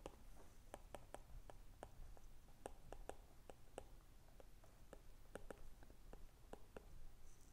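Stylus tip ticking on a tablet's glass screen during handwriting: faint, irregular clicks, several a second, over a faint low hum.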